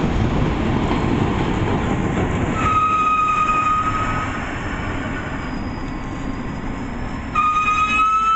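MBTA train running through the station with a steady rumble, sounding its horn twice: two single-note blasts of about a second and a half each, the second rising slightly in pitch as it ends.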